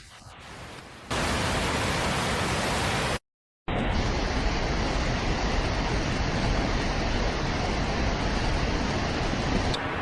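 Loud, steady rush of water noise from heavy rain and floodwater. It is quieter for about the first second, then cuts to silence for half a second about three seconds in before the rush resumes.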